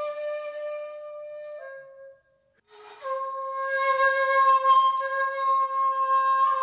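Solo shakuhachi playing slow, long held notes with a strong breath sound. One note is held, dips slightly and stops for a short breath about a third of the way in. A brief lower note follows, then another long, breathy note that holds to the end.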